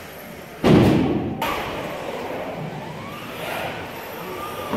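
A heavy thud about a second in as an RC car lands a jump on the wooden skatepark ramps, ringing briefly in the hall, followed by the fainter rising and falling whine of electric RC car motors.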